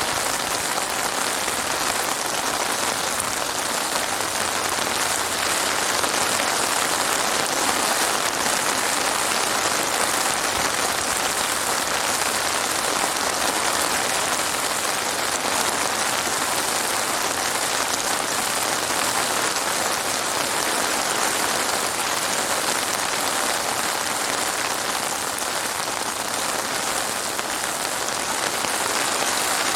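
Heavy rain falling steadily, a dense even hiss of many drops on surfaces with no thunder.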